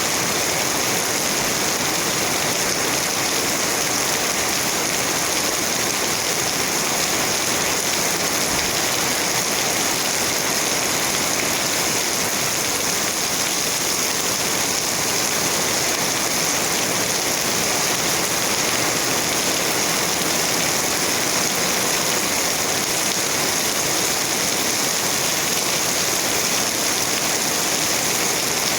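Steady rain falling, an even hiss of drops with no breaks or changes.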